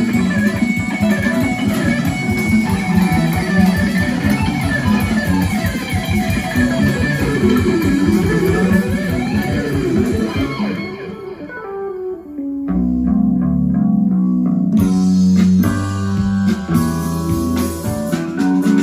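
Recorded music with fast electric guitar and bass, played through a Sansui 9090 receiver and Celestion Ditton 442 loudspeakers in a small room. About eleven seconds in, the quick guitar runs thin out and soften, and a second and a half later a heavier passage with deep bass notes comes in.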